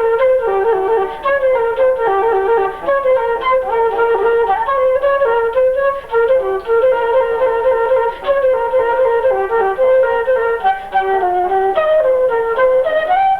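Instrumental music: a high wind instrument plays a melody of short, stepping notes without a break.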